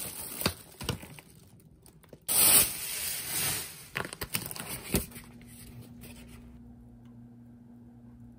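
Thin plastic grocery bags crinkling and rustling as hands rummage through a shopping bag, with sharp crackles and the loudest rustle about two to three seconds in. The rustling stops about five seconds in, leaving a faint steady hum.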